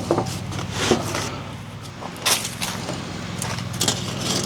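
A small engine running steadily at idle with a low hum, while short knocks and rustles of boards and tools being handled come and go over it.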